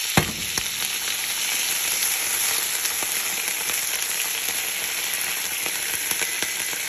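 Plantain shoots and hosta leaves sizzling steadily in a hot nonstick frying pan after a splash of water, stirred with a wooden spatula. A single sharp knock comes just after the start.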